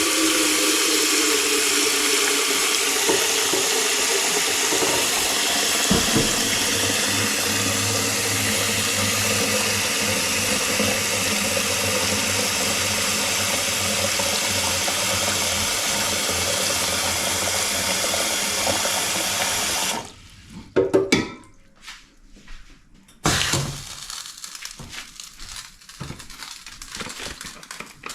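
Water running steadily from a kitchen tap, shut off abruptly about twenty seconds in, followed by a couple of sharp clanks and quieter handling sounds.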